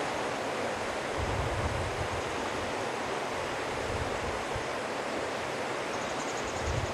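Steady rush of water, with wind buffeting the microphone in irregular gusts.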